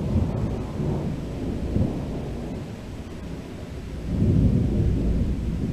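Thunder rumbling in a long, low roll that swells louder about four seconds in.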